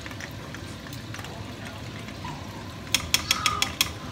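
Spring rolls deep-frying in a pan of oil, a steady sizzle, with a quick run of about six sharp metallic clicks from cooking tongs near the end.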